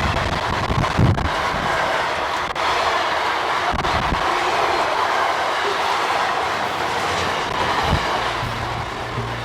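A train running along the track, with the steady rumble and rattle of steel wheels on rail and some clickety-clack from the wagons. There are low thumps in the first second or so.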